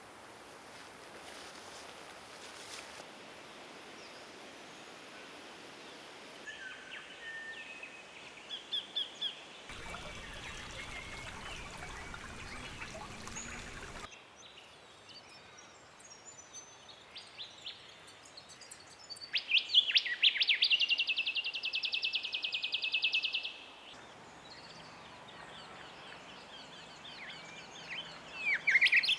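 Wild birds calling over a steady background hiss that changes abruptly several times. The loudest call is a fast, pulsing trill about twenty seconds in, lasting some four seconds, with shorter chirps before and after it.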